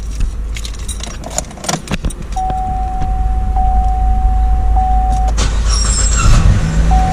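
Car keys jangling and clicking as a 2015 Chevy Cruze is started, with a steady electronic tone sounding for about three seconds in the middle. Near the end the 1.4-litre turbo four-cylinder engine starts and settles into a steady idle.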